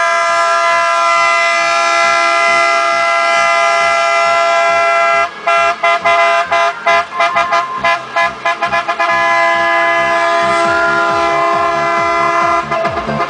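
Multi-tone truck air horn sounding a chord of several pitches: held long, then blasted in a run of quick short toots for about four seconds, then held steady again.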